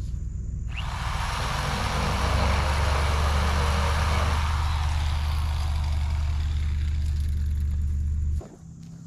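Reciprocating saw (Sawzall) running and cutting through nailed wooden framing, a steady buzzing drone with a rough rasp of the blade in the wood. It stops abruptly near the end.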